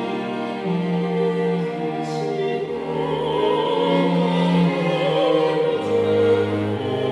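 String quartet of two violins, viola and cello playing sustained chords, with a soprano voice singing with vibrato over them from about three seconds in.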